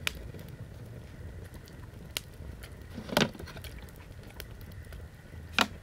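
Campfire crackling: a few sharp, irregular pops over a low steady rumble, the loudest about three seconds in and another shortly before the end.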